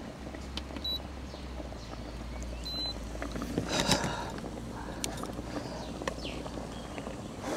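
Cooking gear being handled: scattered light clicks and rustles, with a louder clatter about four seconds in, over a low steady hum that stops shortly before the end.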